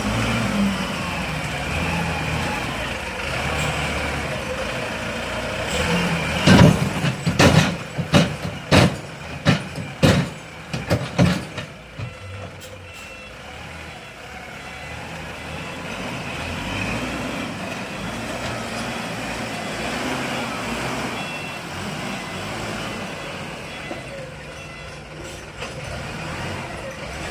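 Wheel loader's diesel engine running steadily, with a run of about ten loud bangs and knocks over some five seconds, starting about six seconds in.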